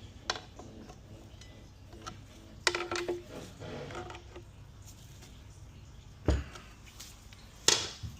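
Metal tools clinking and tapping against a large snap ring in the steel-and-aluminium case of a Ford 6F35 transmission as it is worked loose. There is a short cluster of clinks with a brief metallic ring about three seconds in, a knock a little after six seconds, and a sharp click near the end.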